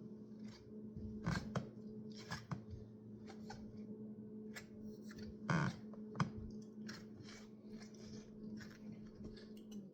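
Handling noises: scattered clicks and rustles, over a steady hum that cuts off near the end.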